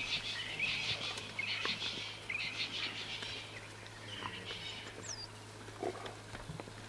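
African wild dogs twittering: high-pitched, bird-like chirps in several short bouts during the first three and a half seconds, fading after. Faint scattered ticks of paws and loose soil come as the puppies scramble down a sandy bank.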